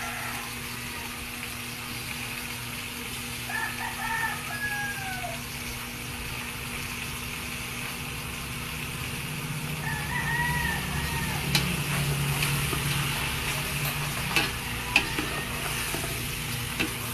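A rooster crowing twice, about four seconds in and again around ten seconds, over a steady sizzle of chicken pieces in an aluminium pot on a wood fire. Near the end come a few sharp knocks as a wooden spoon stirs the pot.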